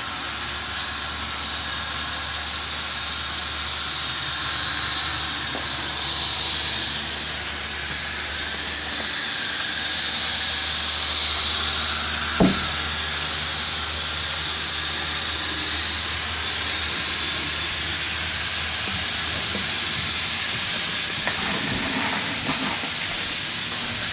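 Model diesel locomotive pulling a string of empty hopper cars along the track, running steadily with a constant low hum and a high whine. There is one sharp click about twelve seconds in.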